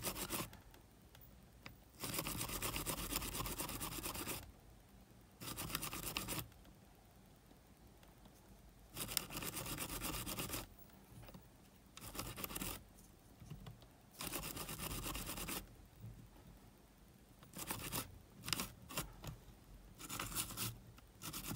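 Toothbrush scrubbing inside a Sony WM-GX822 cassette Walkman's tape mechanism to clean it. It comes in bursts of brushing of a second or two, separated by quiet pauses, with quicker short strokes near the end.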